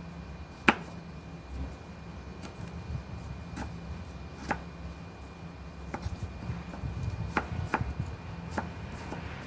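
Kitchen knife slicing an apple on a plastic cutting board: irregular knocks of the blade meeting the board, the sharpest about a second in, over a steady low rumble.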